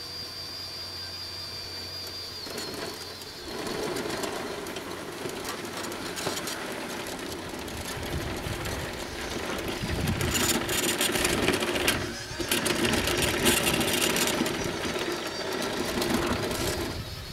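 Scratch-built RC bulldozer's drive running as it crawls forward on its tracks, pushing a blade load of sand. Steady mechanical whirring and clatter starts about three seconds in and grows louder and rougher from about ten seconds in, with a brief dip just before twelve seconds.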